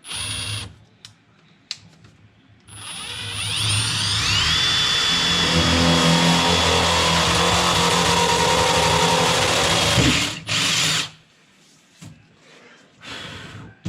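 Power drill drilling a hole in a truck door. A short trigger blip, then the motor winds up into a steady high whine for about seven seconds and stops, followed by two more short bursts.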